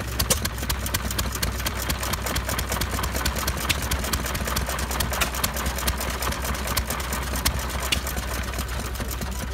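Antique hit-and-miss stationary gas engine running, a steady run of sharp clicks over a low hum.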